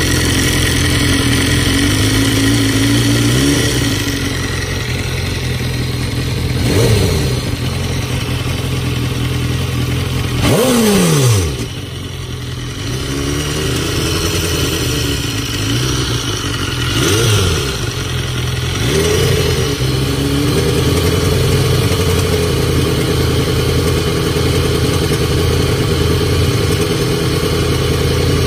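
2013 BMW S1000RR inline-four engine idling with a rattle, its throttle blipped a few times so the revs rise and fall, the biggest blip about a third of the way in. The owner suspects the rattle comes from a failing cam chain tensioner.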